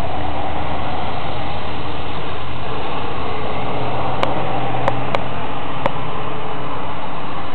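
A steady, loud rumbling noise, with four short sharp clicks in the second half.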